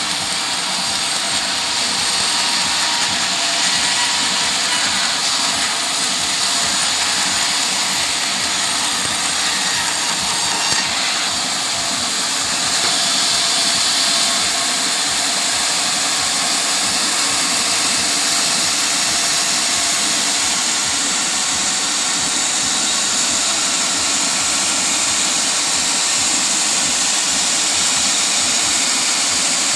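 Sawmill saw running continuously as it cuts teak, a loud steady hiss of machine and blade with no pauses, getting slightly louder about twelve seconds in.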